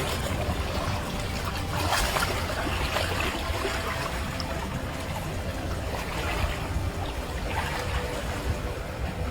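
Water splashing and trickling in irregular bursts over a steady low rumble.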